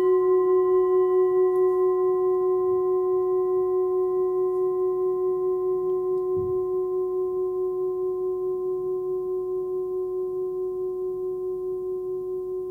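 Forged Tibetan singing bowl tuned to F-sharp (about 368 Hz, 13.7 cm across) ringing on after a mallet strike: one clear steady tone with fainter higher overtones, wavering gently as it slowly fades.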